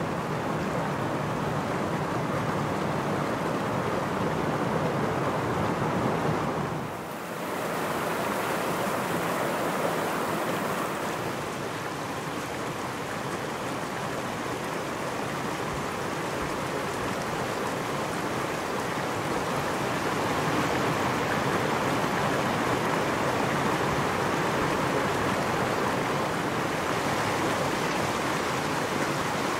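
Mountain stream rushing over rocks and small cascades, a steady water rush. It dips briefly about seven seconds in, then carries on with a brighter hiss.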